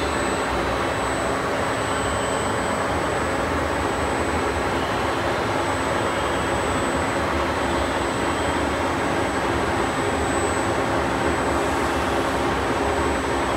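Masteel ML1436120NOZ CNC hollow-spindle lathe running unloaded, its 32-inch four-jaw chuck spinning with no workpiece and no cut being made. It makes a steady, even machine hum with a few held low tones and a thin high tone above them.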